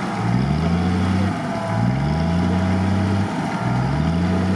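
Off-road 4x4 engine revved over and over in even surges, about every one and a half seconds: each time the pitch climbs, holds for a moment, then falls away. A steady higher whine runs beneath it.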